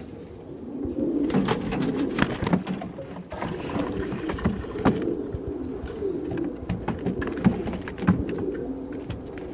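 Domestic Shami pigeons cooing repeatedly in low, rolling calls, with scattered sharp clicks and taps among them.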